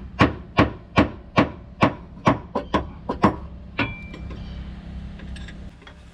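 A 2-pound hammer tapping on a screwdriver set against the van's rear rubber bump stop: about a dozen sharp taps, two to three a second, to knock the stop loose so it can be unscrewed. The last tap, about four seconds in, rings briefly, followed by a few lighter clinks.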